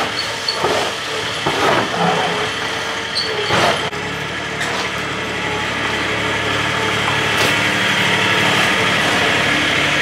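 A shovel scraping and scooping across a concrete stall floor, several strokes in the first few seconds and one more later, as bedding and manure are cleaned out. A steady engine hum runs underneath.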